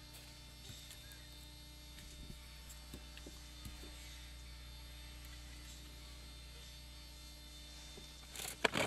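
Steady electrical mains hum under the recording, with a few faint paper taps and rustles as the paper masks are pressed down onto the card. A short louder rustle comes near the end.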